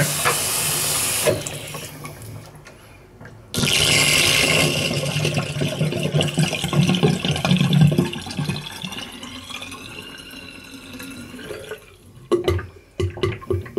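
Bathroom hand basin full of hot water draining fast down the plughole after its blockage has been cleared. The water rushes, then gurgles and sucks as the last of it goes down, and a few knocks follow near the end.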